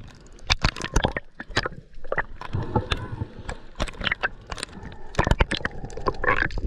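Water sloshing and gurgling around a snorkeller's camera, with many irregular sharp clicks and pops.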